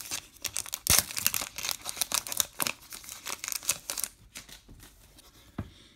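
Plastic wrapper of a Topps Gypsy Queen baseball card pack being torn open and crinkled by hand: a dense run of crackles and rips, with the sharpest tear about a second in. The noise dies down after about four seconds as the cards come out.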